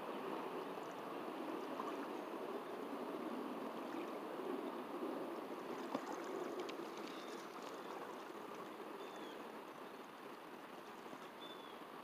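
Steady rushing outdoor background noise beside open water, easing slightly toward the end, with a single faint tick about halfway and a few short, faint chirps in the second half.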